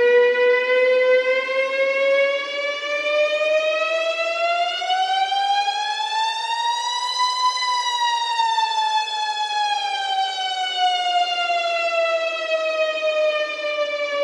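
Emergency warning siren sounding one slow wail. Its pitch climbs steadily for about seven seconds, peaks, then falls back down over the next seven.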